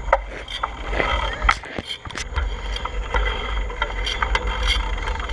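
Wind buffeting the microphone of a camera carried on a bicycle ride, a heavy fluctuating rumble, with scattered sharp clicks and rattles from the ride.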